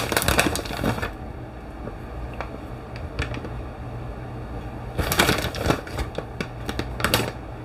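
Rustling, crinkly clicking as shredded cheddar cheese is handled and sprinkled over the pan, in two bursts: one near the start and one from about five seconds in. A low steady hum runs underneath.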